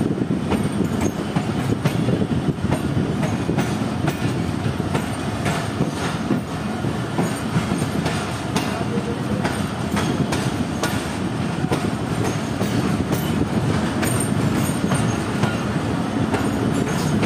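Passenger train rolling into the station: a steady low rumble from the coaches with irregular sharp clicks of wheels passing over rail joints.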